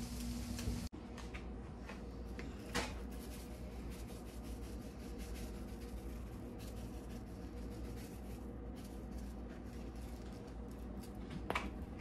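Faint light taps and rustles of powdered seasoning being shaken from a container over a skillet, with one clearer tap about three seconds in, over a steady low hum.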